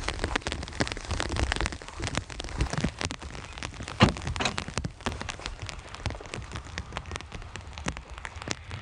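Rain falling steadily, with many separate drops ticking sharply on a surface and one louder knock about four seconds in.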